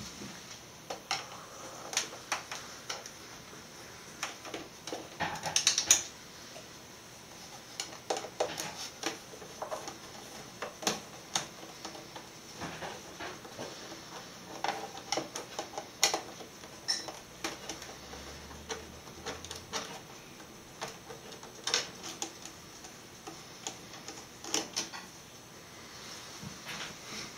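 A screwdriver working at the screws in the plastic back cover of a Dell Inspiron 2320 all-in-one computer: irregular light clicks and taps of metal on screws and plastic, with a louder cluster about five to six seconds in.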